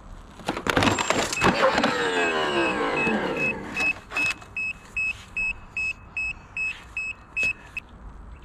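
Ninebot One S2 electric unicycle and rider crashing onto concrete: a clatter of knocks, then the unicycle's motor whine falling in pitch as the wheel spins down. A string of short, high beeps follows, about three a second, from the unicycle's alarm after the fall.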